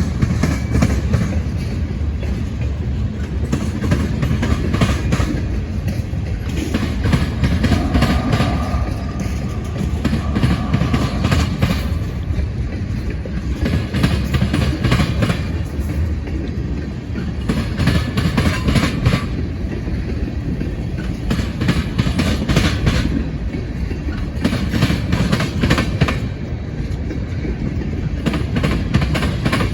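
Freight train cars rolling past: a steady low rumble with groups of wheel clicks over the rail joints every second or two.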